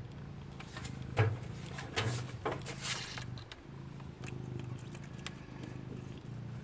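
A cat eating wet food: several short, wet chewing and smacking noises come in a cluster about a second to three seconds in, over a steady low hum.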